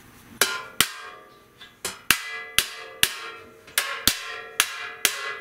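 Rawhide mallet tapping the brass bell of a 1917 King baritone saxophone over a bodywork dolly: about ten sharp strikes, roughly two a second, each leaving a brief metallic ring. The taps are knocking small dents out of the bell.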